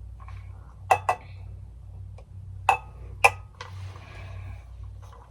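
Glass cup clinking four times in quick, sharp strikes with a short ring, then a soft pour of matcha into the cup.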